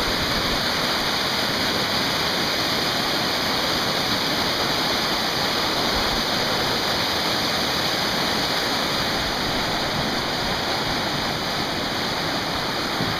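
The Colorado River, running high and fast with snowmelt, rushing through white water in a steady, unbroken roar of water.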